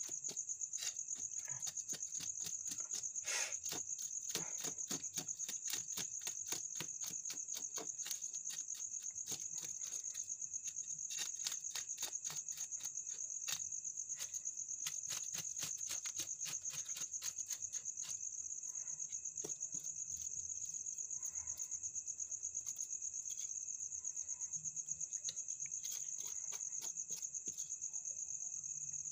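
Crickets trilling steadily at a high pitch, over a quick run of short scraping clicks from a knife scaling fish. The scraping comes thickly at first and grows sparser after about 18 seconds.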